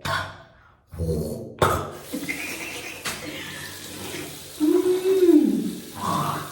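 Kitchen tap running into a sink, a steady rush of water with a couple of sharp clicks. About two-thirds of the way through, a louder low hum comes in for about a second and drops in pitch as it ends.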